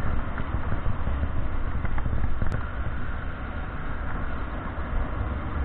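Riding noise of a motorcycle on a wet road in the rain: wind rumbling on the microphone over a steady hiss of tyres on wet tarmac, with no clear engine note above it.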